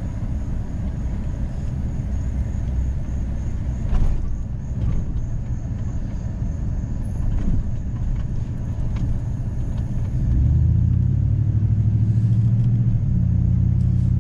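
Vehicle driving with a steady low rumble of road and engine noise and a single knock about four seconds in. About ten seconds in the engine note rises and then holds as a louder steady hum while the vehicle picks up speed.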